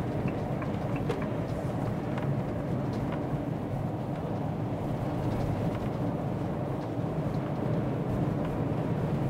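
Steady road and engine noise inside a motorhome's cab while it is being driven.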